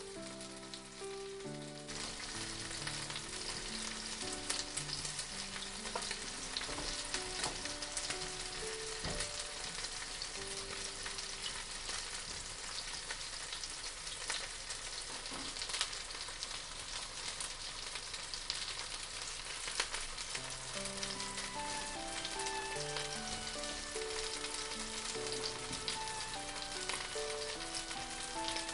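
Food sizzling and frying in a hot pan, the sizzle growing louder about two seconds in, with background music of soft melodic notes.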